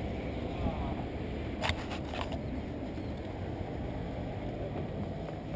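Steady low rumble of background street traffic, with two brief clicks about two seconds in.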